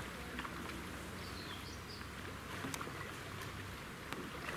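Kayaks being paddled on a slow river: low, steady water noise with a few faint paddle drips and knocks.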